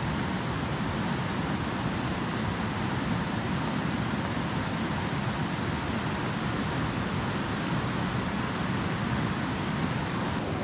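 Steady rushing of a mountain stream, an even noise that does not change.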